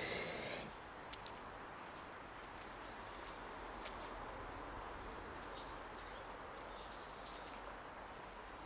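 Small birds chirping now and then in short, high calls that fall in pitch, over a steady background hiss.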